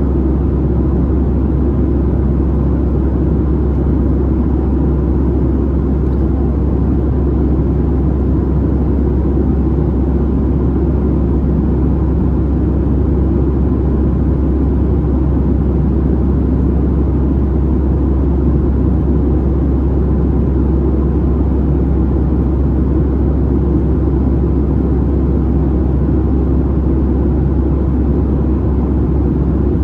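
Steady, low cabin noise of a Boeing 737-700 in flight: its CFM56-7B turbofan engines and the rush of air over the fuselage, heard from inside the cabin.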